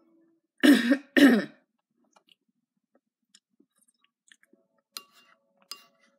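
Two short, loud coughs about half a second apart, followed later by two faint sharp clicks.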